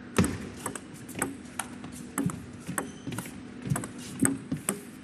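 Table tennis rally: the celluloid ball clicking sharply off the rubber-faced paddles and the table, about a dozen hits at roughly two to three a second.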